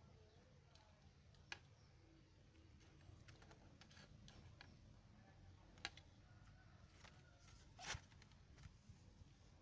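Near silence: room tone with a few faint, scattered light clicks and taps, the clearest about a second and a half in, near six seconds, and a slightly longer one near eight seconds.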